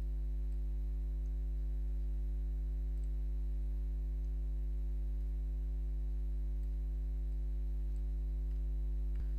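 Steady electrical mains hum, a low buzz with its overtones, unbroken throughout. A few faint clicks sound over it.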